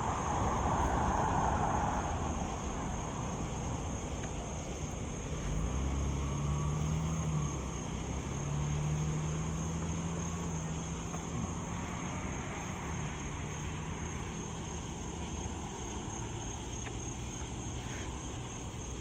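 Traffic going by on a highway: a steady rush of passing vehicles, with one engine's hum rising in from about five seconds in and fading out a few seconds later.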